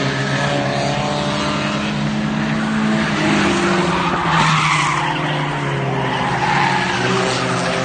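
Race car engine running at speed on the track. Its pitch dips about three seconds in and climbs again, with tyre noise swelling near the middle.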